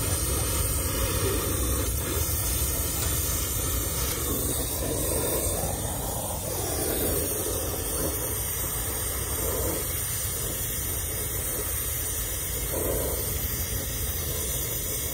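Brazing torch flame hissing steadily as a copper refrigerant line joint is brazed.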